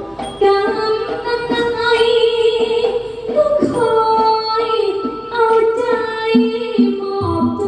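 A woman singing a likay melody through a headset microphone and PA, holding long notes with a wavering vibrato.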